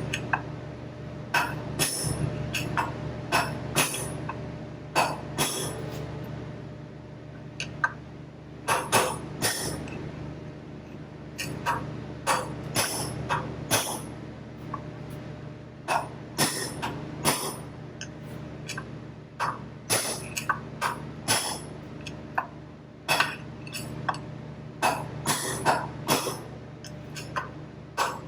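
Hammer blows knocking a steel bearing race out of a baler wheel hub: sharp ringing metallic clinks, irregular and often in quick runs of several strikes, with a short let-up partway through.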